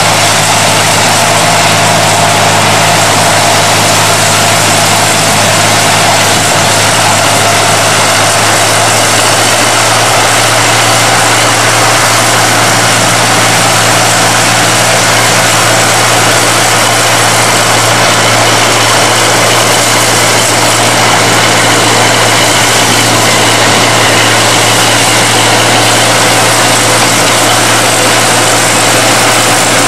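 Small narrow-gauge diesel locomotive's engine running with a steady, unchanging drone under a loud hiss.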